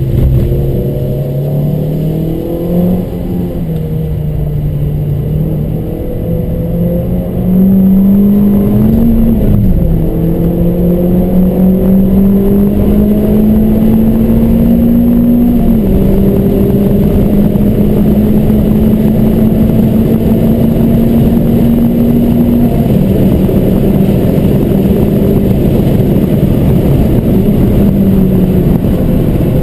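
Car engine under acceleration on a race circuit. Its note climbs slowly and drops back in a step several times, about every six or seven seconds. It is louder from about a quarter of the way in.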